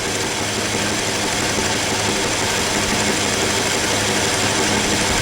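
Metal lathe running steadily during a turning pass, a constant motor hum under the even noise of the tool cutting the stock.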